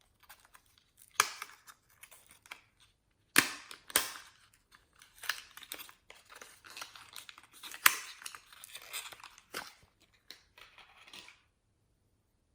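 Slime being squished and stretched by hand: sticky crackling broken by sharp popping clicks, five of them loud, stopping near the end.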